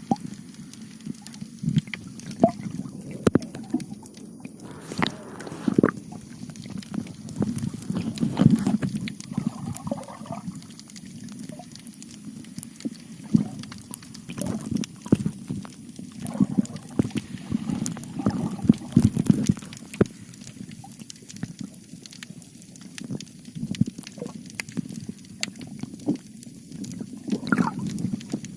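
Seawater sloshing and gurgling, in irregular low surges with scattered sharp clicks and pops.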